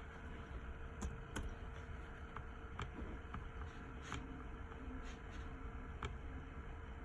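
A handful of short, sharp clicks, irregularly spaced, over a steady low hum and faint room noise.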